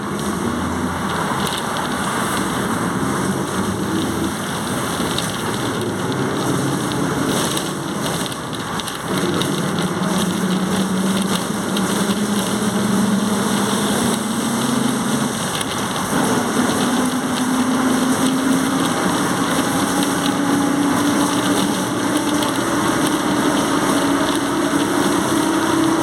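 Volkswagen 17.230 OD bus accelerating: a droning transmission whine that rises steadily in pitch, breaks off briefly about nine seconds in, and steps up again about two-thirds of the way through, over a steady hiss of road noise.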